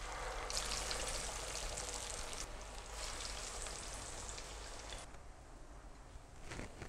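Cabbage shami kebab patties deep-frying in hot oil: a steady, crackling sizzle of bubbling oil. It fills out about half a second in and drops to a quieter hiss about five seconds in.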